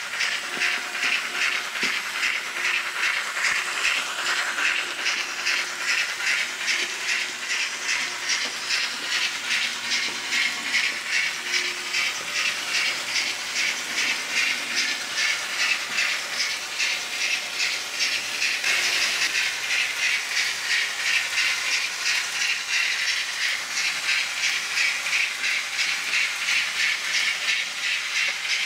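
Steam locomotive chuffing: a steady rhythmic hiss of exhaust beats, about three a second, the running sound that goes with a model BR 18 steam engine pulling its train.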